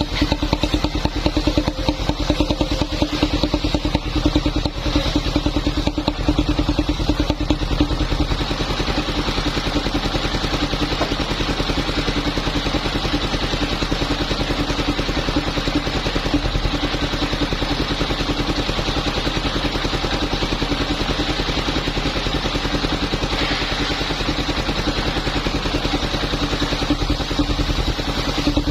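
Two-stroke chainsaw running steadily at high speed, sawing a waru log, with no clear pause or change in pitch.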